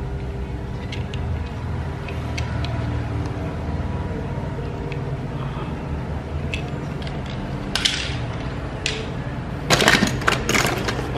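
Small die-cast and plastic toy vehicles clattering and clicking against each other as a hand rummages through a cardboard box of them, with a burst of clatter just before eight seconds and the loudest run of clicks about ten seconds in. A steady low hum sits under it.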